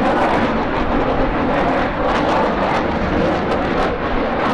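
Loud, steady jet noise from a JASDF F-15J fighter's two F100-IHI-220E turbofan engines as the jet flies overhead.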